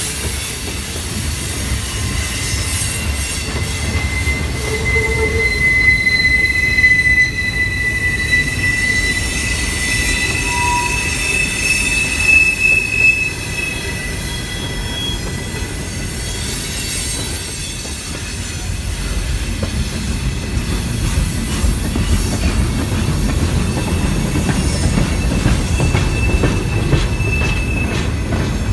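Freight cars of a long Norfolk Southern train rolling slowly past on a curve, with a steady low rumble of wheels on rail. High, thin wheel squeal comes and goes over it, strongest for several seconds in the first half and again near the end.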